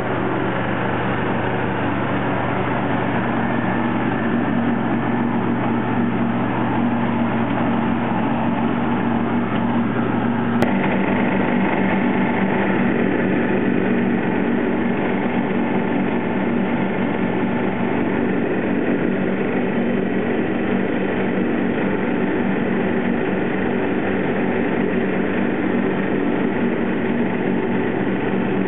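John Deere 316 lawn tractor's 16-horsepower twin-cylinder engine running steadily under load, with the mower deck engaged and cutting grass. About ten seconds in there is a brief click and the tone changes abruptly.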